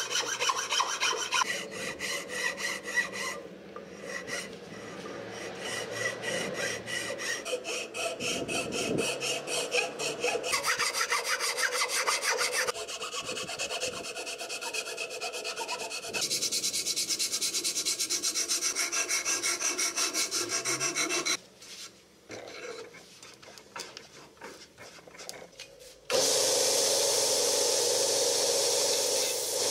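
Steel hand file rasping along a wooden shovel handle in quick repeated strokes. The scraping drops away past the middle, and a steady rushing noise starts abruptly near the end.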